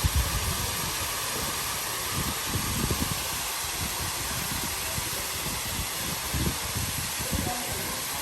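Steady hiss of water falling and splashing from a rain-style fountain, with irregular low rumbles and bumps underneath.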